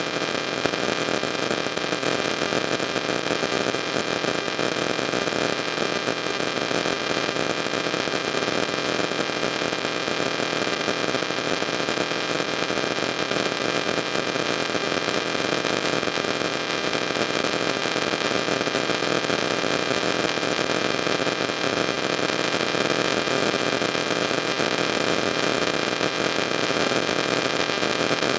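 Steady, fairly loud hiss with a few faint constant tones running through it, unchanging throughout.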